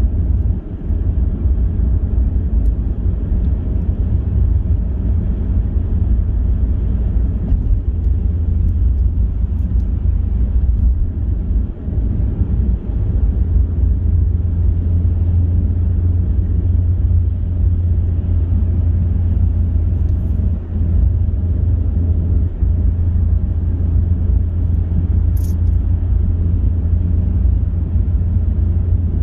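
Steady low rumble of road and engine noise from a car driving at motorway speed.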